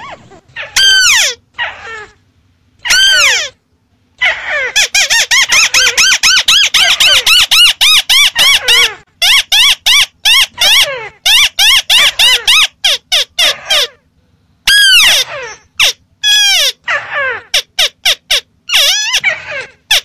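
White-browed crake calling: rapid series of downward-sliding notes, several a second, in bursts broken by short silences near the start and about two-thirds through.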